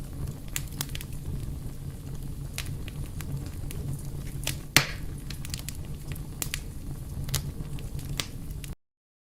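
Wood fire burning: sharp crackles and pops over a low, steady rumble, with one loud pop about five seconds in. It cuts off suddenly near the end.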